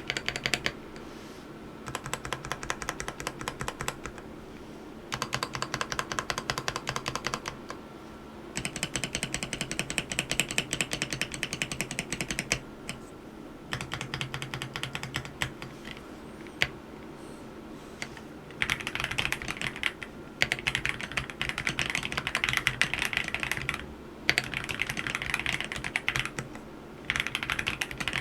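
AULA F87 mechanical keyboard with yellow switches being typed on fast, in runs of rapid keystrokes a few seconds long broken by short pauses.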